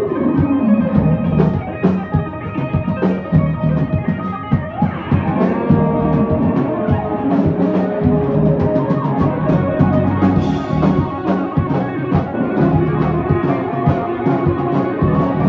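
Two electric guitars playing a loud improvised jam, with a note sliding down in pitch in the first second or so, over sustained chords and dense percussive hits.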